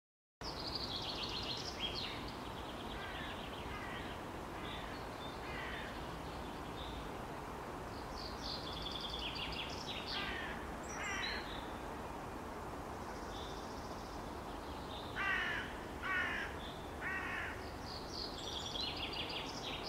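Outdoor ambience: several birds calling and chirping over a steady background noise, with three louder, harsh calls in a row about three-quarters of the way through.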